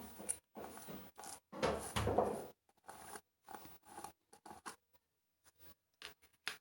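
Sequin slime being squeezed and stretched by hand, giving irregular crackly, squishy bursts, loudest about two seconds in.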